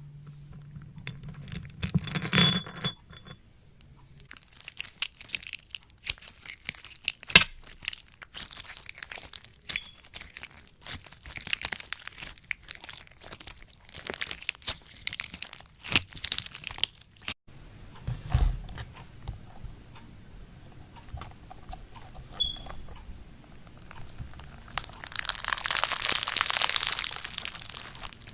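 Crunchy slime being squeezed and pressed by hand, giving rapid irregular crackles and pops, with a louder, denser run of crackling near the end.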